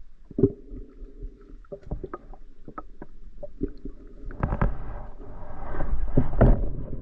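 Muffled underwater water noise with a low rumble and scattered knocks and clicks, as picked up by a camera in a waterproof housing during a spearfishing dive. It grows louder and noisier from about halfway in.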